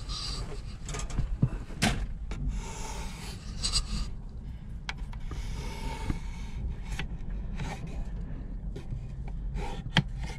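Scattered knocks and scrapes of a plywood board being held and shifted against a Ford E-150's plastic dash console while a line is traced on it with a felt-tip marker, over a low steady rumble. The sharpest knocks come about two seconds in and again near the end.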